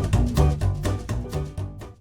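Intro music with a plucked double bass and strings on a steady beat, fading out near the end.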